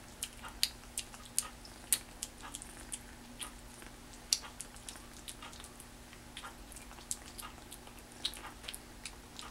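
A kitten licking and chewing wet cat food off a feeding spoon: irregular small wet clicks and smacks, a few louder ones near the start and around two and four seconds in.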